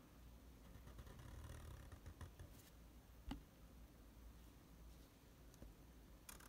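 Near silence: faint room tone with a low hum and a few soft, short clicks, the sharpest about three seconds in.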